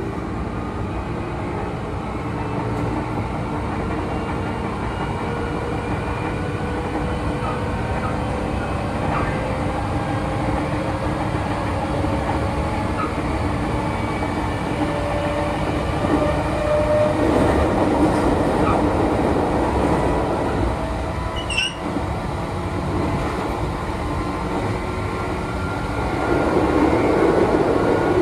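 Meitetsu electric train running on the line, heard from the driver's cab: a motor whine rises slowly in pitch over the steady rumble of wheels on rail. The rail noise grows louder twice in the second half, and there is a sharp click in between.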